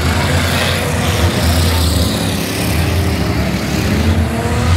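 Engines of several demolition derby cars running loudly together, a continuous low engine drone with no break.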